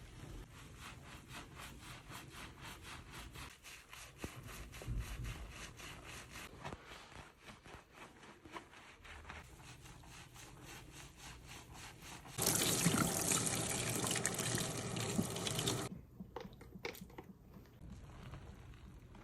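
Scalp-treatment water and hand sounds: soft, quick rhythmic rubbing strokes, then a burst of water spraying for about three and a half seconds that cuts off sharply, followed by a few faint clicks.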